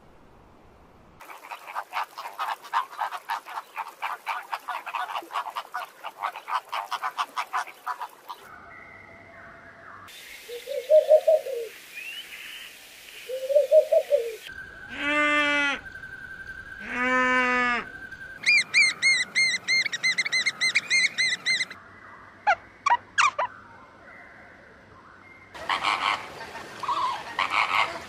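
Bird calls following one another with abrupt cuts between them. First a fast rattling chatter, then two low hoots, two long drawn-out calls, a quick run of high repeated notes, and near the end a dense flock chattering.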